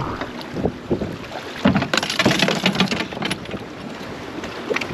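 Water splashing and lapping against a boat's stern as a spearfisher in the water swims up and grabs the swim platform, with a cluster of splashes and knocks about two seconds in.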